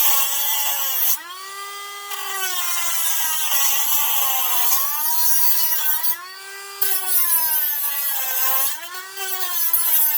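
Dremel rotary tool with a cutoff wheel cutting into the thin chrome foil cap over a rusted lug nut. The motor's whine dips in pitch each time the wheel bites and climbs again as it eases off, under a gritty hiss of the abrasive wheel on metal that pauses briefly about a second in and again around six seconds.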